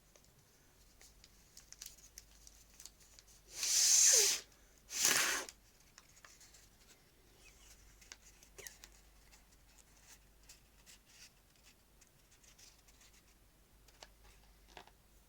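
Folded origami paper being handled, with small crinkles and taps, and two short loud rustling rushes about a second apart around four seconds in.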